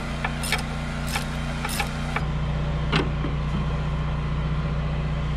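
A steady low machine hum with a few sharp metallic clicks in the first two seconds from a ratchet wrench working the bolts of a rusty manual anchor windlass. One louder click comes about three seconds in.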